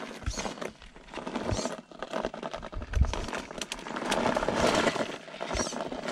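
Electric RC rock crawler on its stock tyres, scrabbling for grip on a loose rocky slope: the tyres crunch over grit and stone with scattered small clicks. The crunching grows louder about four seconds in.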